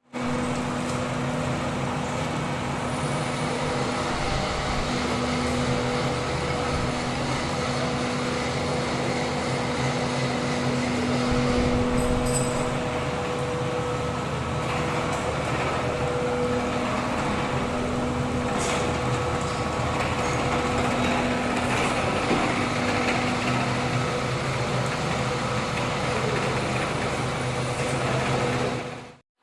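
Milling machine running steadily: a constant hum with a higher steady tone above it, under a rough, even machining noise.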